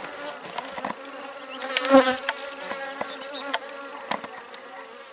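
Swarm of honeybees buzzing, a steady hum, with scattered sharp clicks and a louder swell about two seconds in.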